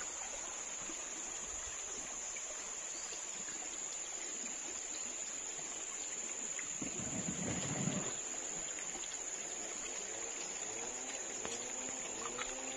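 Steady high-pitched insect drone over the soft wash of a shallow river. About seven seconds in, a brief louder low noise rises over it.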